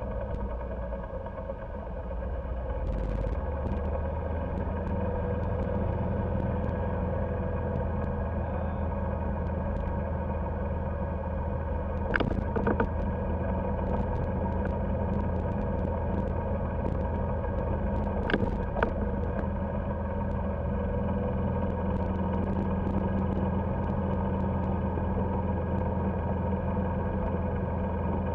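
Golf cart running steadily as it drives along a paved road, picking up a little about three seconds in. Two brief knocks stand out, a little under halfway through and again about two-thirds through.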